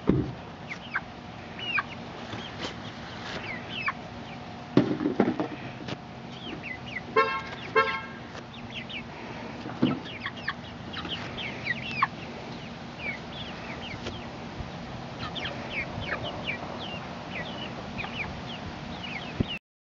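A flock of young chickens cheeping and clucking: many short, high peeps scattered throughout, with a few louder low clucks. A brief two-part honk-like call sounds about seven seconds in.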